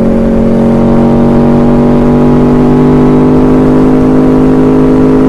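Aprilia V4 motorcycle engine pulling steadily at cruising revs, its pitch creeping slowly upward over the second half as the bike gently gains speed. Wind buffets the microphone underneath.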